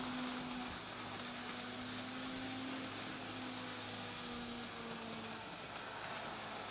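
Kato N scale GE AC4400CW locomotive running on DC and pulling four loaded coal hoppers: a quiet, steady motor hum over an even hiss of the train rolling on the track.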